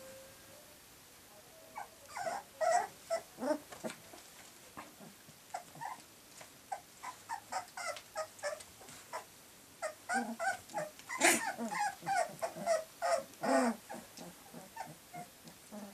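Three-week-old puppies whimpering and giving small growls as they tussle around their mother, in a string of short cries that starts about two seconds in and is busiest a little after the middle.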